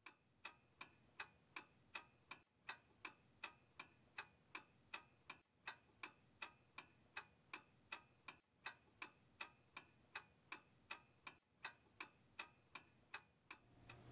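Faint clock-ticking sound effect: a steady tick about three times a second, marking time passing in a sped-up sequence.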